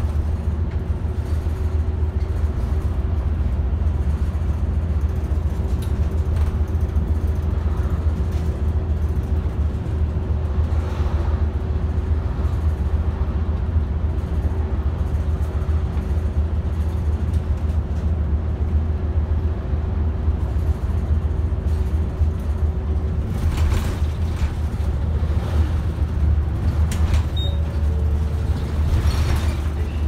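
City route bus running at road speed, heard from inside the cabin at the front: a steady low drone of engine and road noise, with a faint steady whine through most of it that stops about three quarters of the way in. A few brief rushes of noise come near the end.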